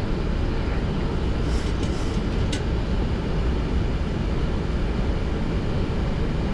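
Steady rumble of air and engine noise on a Boeing 737-800 flight deck in flight on approach, with a few short clicks about two seconds in.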